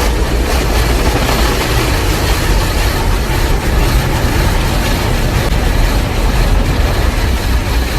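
A vehicle running: a steady, loud low rumble with an even hiss over it.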